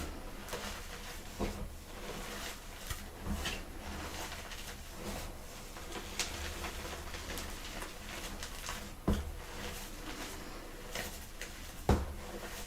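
Blocks of gym chalk crushed by hand, crunching and crumbling with small crackles and soft powdery squeezes. Three sharper, louder snaps come about a second and a half in, about nine seconds in, and near the end.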